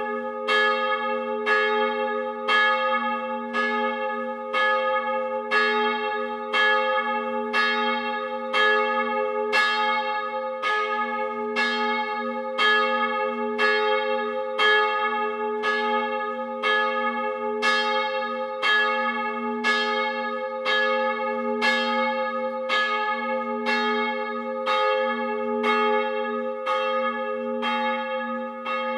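A single bronze church bell, cast 1689 by Abraham Sievert with nominal A-flat and weighing 500 kg, swinging and ringing on its own. The clapper strikes about once a second in an even rhythm, and each stroke rings on into the next over a steady low hum.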